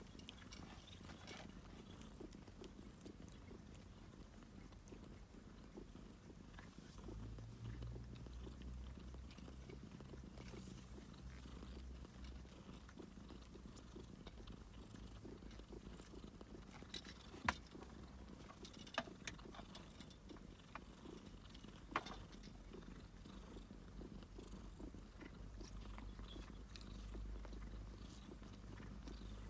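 Domestic cat purring, a faint low purr that swells about seven seconds in, eases off, and rises again near the end. Three sharp clicks come about two-thirds of the way through.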